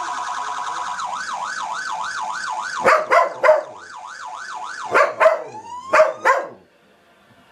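Police siren sounding a steady wail that switches about a second in to a fast up-and-down yelp, with a Belgian Malinois barking sharply over it in three short bursts. The siren cuts off just before the end.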